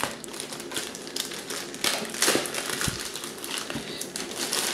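White packaging wrap crinkling and crumpling in the hands as it is pulled off a parcel box, in irregular rustles and crackles.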